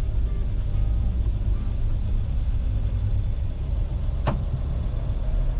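Classic Land Rover driving on the road: a steady low engine and road rumble, with one sharp click about four seconds in.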